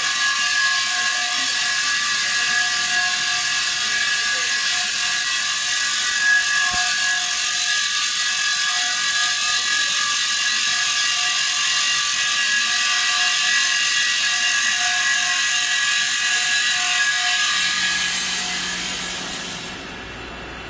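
CNC drum grinding machine's motor-driven abrasive wheel running against a turning stainless steel drum: a loud, steady grinding hiss with a steady whine under it. It dies away near the end.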